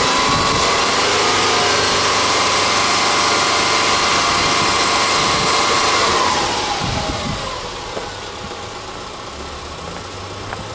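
Subaru Impreza 20S's 2.0-litre flat-four boxer engine being free-revved with the car standing still: the revs are held up for about six seconds, then drop away and settle back to idle.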